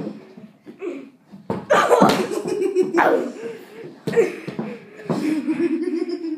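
Loud laughter that breaks out about a second and a half in and runs on in long stretches, after a few faint short sounds.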